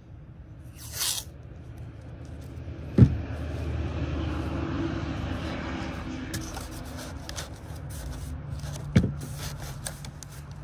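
Hands working over canvas and cardboard: a sharp knock about three seconds in, then a few seconds of scraping and rustling with a low rumble under it. Scattered clicks follow, and there is another knock near the end as a cardboard sheet is laid down.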